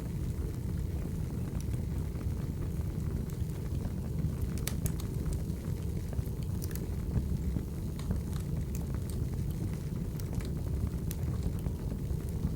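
Wood fire burning: a steady low rumble with scattered sharp crackles and pops at irregular moments.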